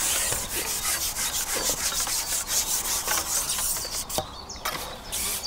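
Close rubbing and scraping noise with a rapid flutter of fine ticks, easing off about three and a half seconds in, then a few light knocks.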